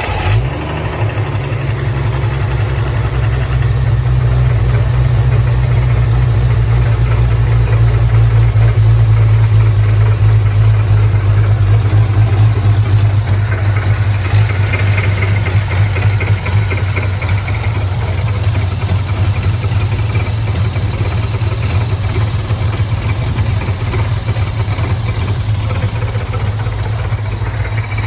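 Triumph TR6's 2.5-litre straight-six engine idling steadily just after starting, showing the odd noise its owner hears on startup.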